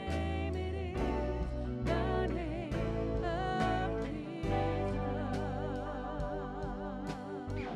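Live worship band playing a song: a woman singing lead over electric guitar, keyboard, bass guitar and drum kit, with wavering held notes and regular drum hits.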